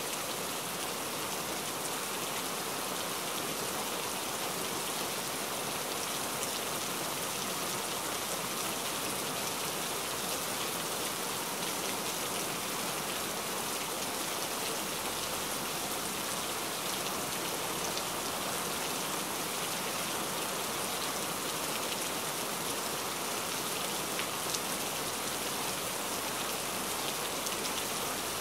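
Heavy rain falling steadily, a dense even hiss of drops with faint scattered patters.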